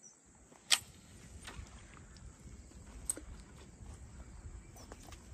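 A sharp click from a spinning reel as it is worked during a cast and spinner retrieve, the loudest about a second in and a smaller one about three seconds in, over a faint low rumble of wind.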